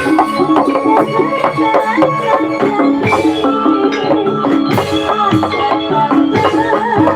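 Javanese gamelan music for a kuda kepang (jathilan) dance: metal keyed instruments ringing repeated notes over steady drumming.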